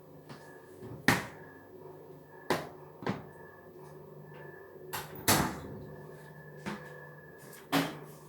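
A run of sharp knocks and bumps as things are handled and set down, about seven of them, the loudest about a second in and just after five seconds in, typical of a cupboard, drawer or fridge parts being moved and shut. A faint steady hum runs underneath.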